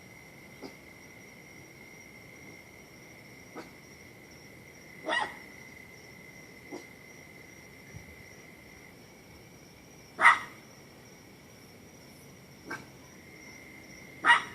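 A dog barking at irregular intervals, about eight short barks with the loudest about ten seconds in and another near the end, over a steady high-pitched drone of crickets or other insects.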